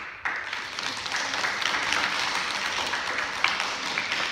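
An audience applauding, many hands clapping at once; it starts suddenly and keeps going steadily.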